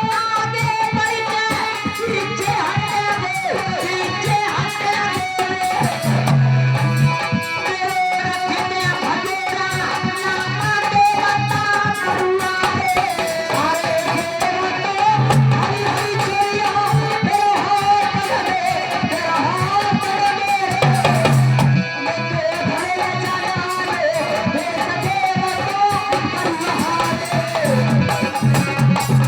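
Instrumental music from a devotional jas song: a plucked-string melody over a drum beat.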